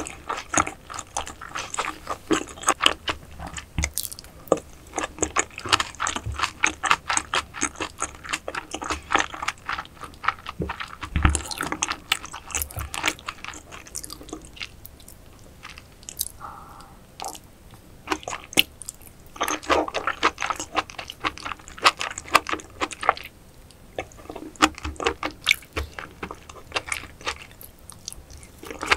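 Close-miked eating sounds: wet chewing and biting with many small clicks, in bursts. The bursts ease off about halfway through, then pick up again.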